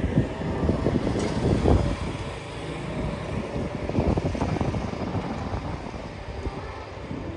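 Wind buffeting the microphone in irregular low rumbling gusts over outdoor city street ambience, strongest in the first couple of seconds and easing after.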